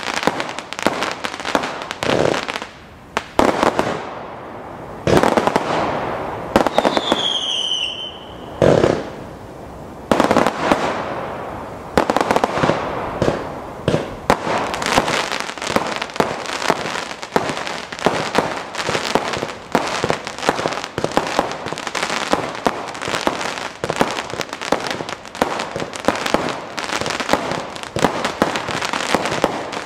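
Black Panther 'Beach Bangers' 296-shot firework cake firing shot after shot, each launch and burst sounding as a sharp report. About seven seconds in a whistle effect sounds briefly, falling in pitch. From about twelve seconds in the shots come in a fast unbroken run.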